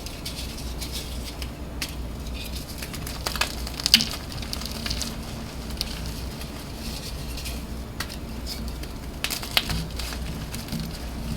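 Dyed gym chalk blocks being crushed and crumbled by hand, giving a dry, crackly crunching with scattered sharp snaps, the loudest about four seconds in and again near the end.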